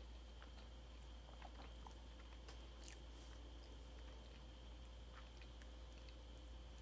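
Faint chewing of a mouthful of homemade Oreo cake: soft, wet mouth clicks scattered through, over a steady low hum.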